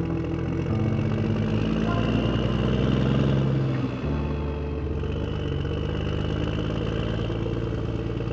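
Motorbike engine running steadily while riding, heard from on board with road and wind noise; the engine note rises over the first few seconds and changes abruptly about four seconds in.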